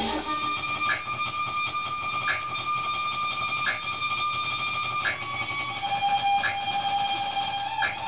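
Music playing: a held, high, alarm-like tone over a soft beat about every second and a half, with a lower held note coming in about two-thirds of the way through.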